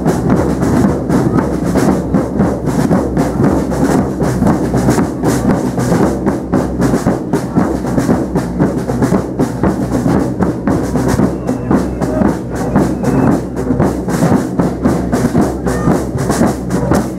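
Procession drum band playing a fast, continuous beat on its drums.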